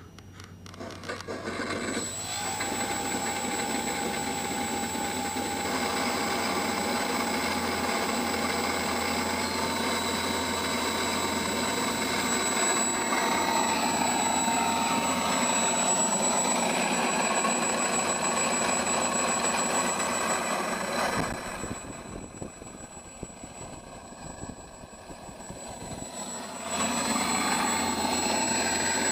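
Electronic engine-sound card in a Dynam Catalina PBY model playing simulated aircraft engine sound through its speaker: it starts up and builds over the first couple of seconds, then runs steadily, drops back about 21 seconds in and rises again near the end.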